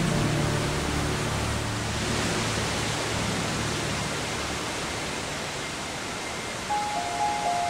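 Waterfall rushing: a steady, even noise of falling water. Background music fades out over the first couple of seconds, and a pair of held tones comes in near the end.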